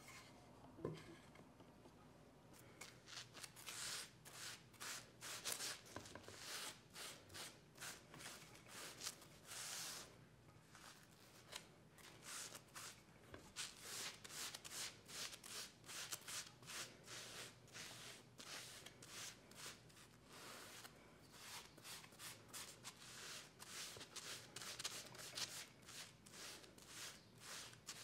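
A cloth rubbing oil into a wooden cutting board in many short wiping strokes, in runs with brief pauses. About a second in, the board is set down on the mat with a light knock.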